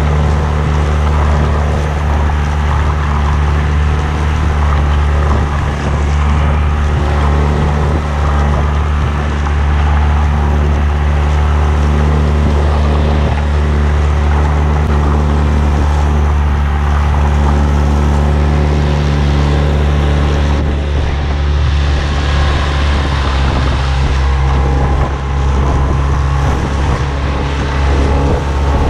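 Tohatsu 9.8 hp outboard motor running at a steady speed while the inflatable boat cruises, with a hiss of water and wind over the engine's low drone.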